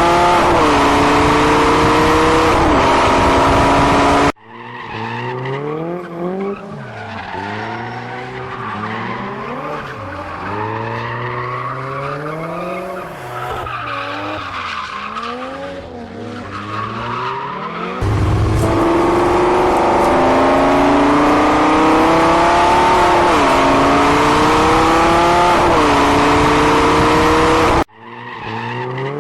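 Race car engine sound effect, revving up through the gears: the pitch climbs and drops back at each shift. It goes quieter, rising and falling, for a long middle stretch, turns loud again about two-thirds of the way in, and cuts off abruptly near the end.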